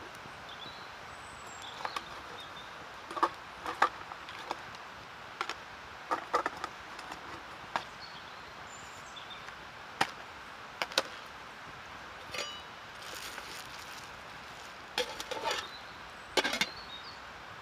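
Woodland ambience: a steady background hiss with scattered sharp snaps and knocks, typical of dry sticks and twigs being handled and broken, and a few brief high chirps.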